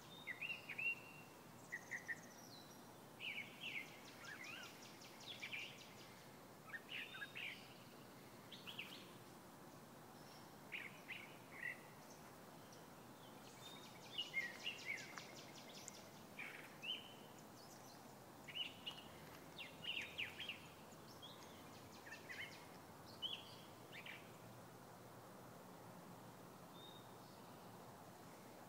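Songbirds chirping in short quick phrases, with a couple of buzzy trills, over a faint steady background hiss. The calls thin out to almost nothing in the last few seconds.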